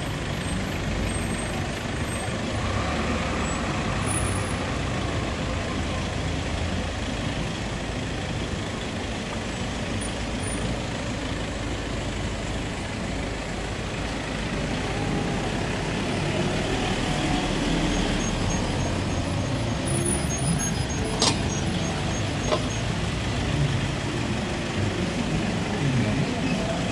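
Slow street traffic: the engines of a box truck and cars running close by as they creep along in a queue, a steady low rumble. There is a short sharp sound about three-quarters of the way through.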